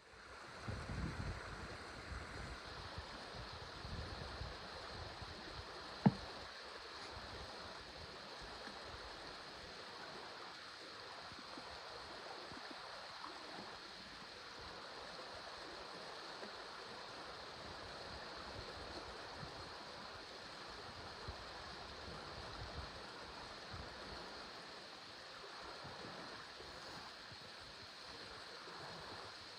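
Steady, fairly quiet rush of running or lapping water, with a few low rumbles in the first couple of seconds and one sharp click about six seconds in.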